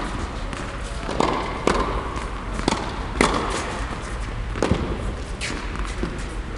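Tennis ball being struck by rackets and bouncing on an indoor hard court: about six sharp pops spread irregularly over the seconds, echoing in the large hall.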